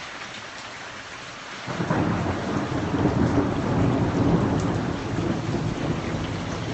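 Steady rain falling; about two seconds in, thunder starts suddenly and rumbles on for several seconds over the rain.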